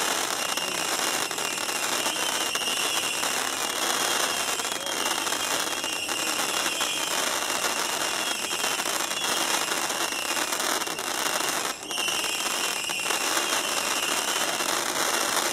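Weco Line of Fire 1000 firework cake firing, a dense, continuous crackle of rapid small shots with a short break about twelve seconds in.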